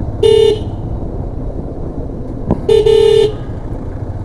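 A vehicle horn sounds twice on one steady pitch: a short toot, then a longer blast about two and a half seconds later, over the steady rumble of a motorcycle riding along the road.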